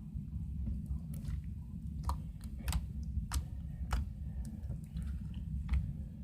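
Slime being squeezed and kneaded by hand, making irregular wet, sticky clicks and pops, over a steady low hum.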